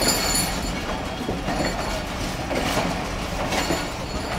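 Passenger coaches rolling slowly past along a platform: a steady rumble of steel wheels on rails with irregular clacks over rail joints, and a brief high squeal about the start.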